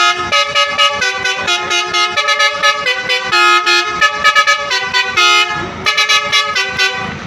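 Bus telolet horn playing a fast melody: a chain of loud honking notes that jump in pitch every fraction of a second. A low rumble rises underneath during the last second and a half, and the horn stops near the end.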